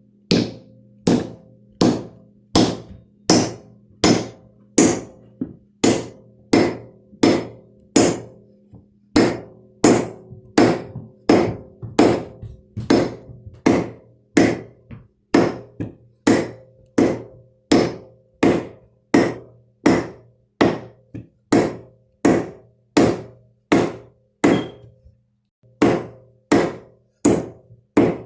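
Hammer blows driving a walnut wedge into the top of an axe handle to set the head: steady, evenly spaced strikes about three every two seconds, each with a short ring, with a brief pause near the end.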